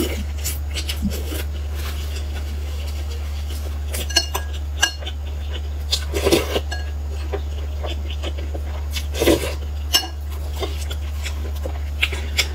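Eating sounds: a metal spoon clinking against a glass soup bowl, with sips and mouth noises between the clinks and two louder ones about six and nine seconds in, all over a steady low hum.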